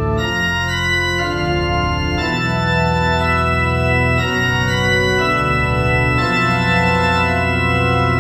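Organ playing a slow air: sustained chords over a moving bass line, the harmony changing every second or two.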